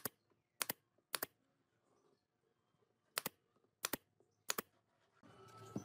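Pneumatic brad nailer firing six times into pine boards, in two groups of three, each shot a sharp double click. A faint hum starts near the end.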